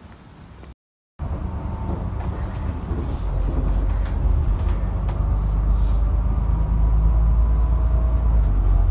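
Interior of a moving public bus: loud, steady low engine and road rumble with a faint whine. It starts about a second in and grows somewhat louder.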